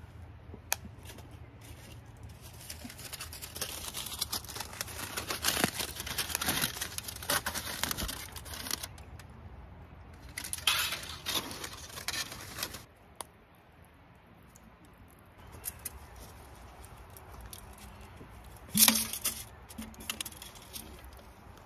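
Aluminium foil crinkling as it is handled and folded, in two long spells, followed by softer rustling and one sharp knock near the end.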